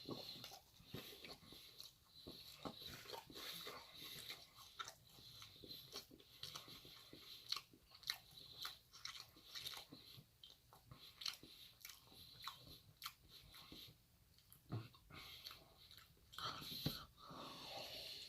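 A person chewing and biting food close to the microphone: faint, irregular crunches and mouth clicks.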